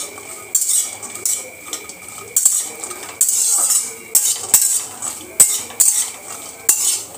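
Metal spoon scraping and stirring cashews around a kadhai as they roast in butter. Repeated scrapes come about once a second, with a couple of sharp knocks of the spoon on the pan midway.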